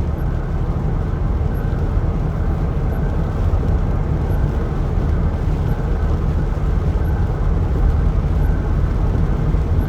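Steady, even rumble of a vehicle's engine and running noise heard from inside the cab.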